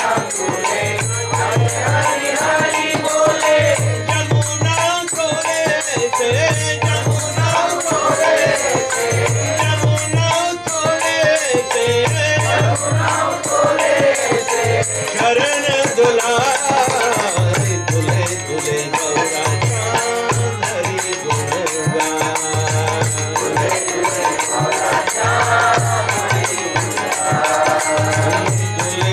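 Bengali Vaishnava devotional bhajan: a man leads the melody while a group of voices joins in, over steady jingling rhythmic percussion and low notes that pulse about every second and a half.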